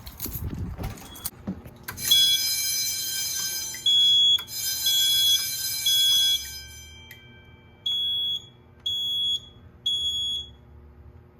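Edwards fire alarm system re-alarming: a harsh electronic alarm tone comes on about two seconds in with a high beep pulsing over it, stops after about five seconds, and gives way to a high beep repeating about once a second. The system keeps re-alarming because the school's alarm is still active and has not been silenced.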